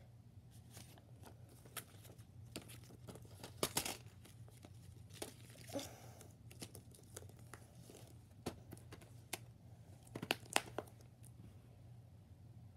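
Faint rustling of paper inserts and light clicks and taps of a plastic Blu-ray case being handled, with a few sharper clicks just before four seconds in and again about ten seconds in as the case is shut.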